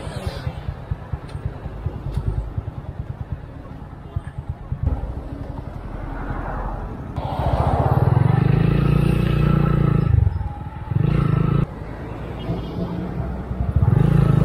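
Motorcycle engine ticking over with a fast low chugging, then opened up under throttle about seven seconds in, rising and dropping in pitch and cutting back sharply a few times as the rider works the throttle and clutch in stop-and-go traffic.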